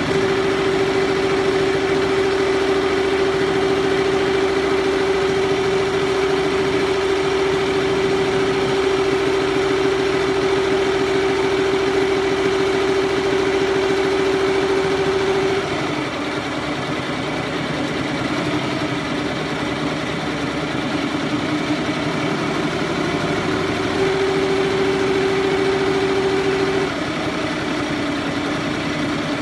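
Single-head He Feng embroidery machine running, a fast steady stitching rhythm over a constant hum. The hum steps down in pitch about halfway, rises again for a few seconds, then drops back.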